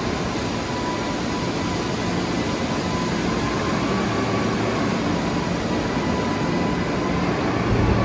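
Tractor engine running steadily while a Western SF18HS grain trailer's body is raised on its hydraulic ram, with dry barley, about 14% moisture, pouring off the tipped body as a steady rushing hiss.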